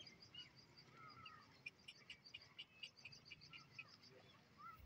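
Faint chirping of small birds, with a quick run of short chirps in the middle.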